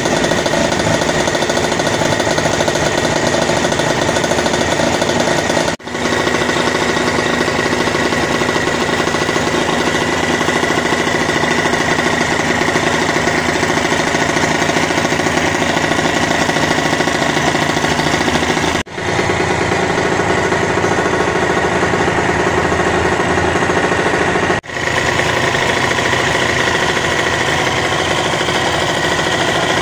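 Yamaha TZM 150's two-stroke single-cylinder engine running steadily, loud and rattly. The sound breaks off for an instant three times.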